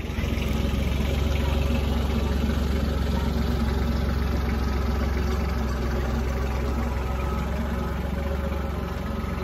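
Kubota compact tractor's diesel engine running steadily at low speed as the tractor drives slowly forward over gravel, getting a little louder about half a second in.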